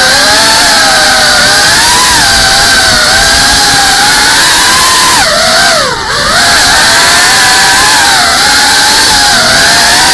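GEPRC Cinelog 35 cinewhoop's brushless motors and propellers whining, heard from the camera mounted on the drone, with the pitch wavering up and down as the throttle changes. About six seconds in the throttle is chopped briefly: the whine drops sharply in pitch and then climbs back.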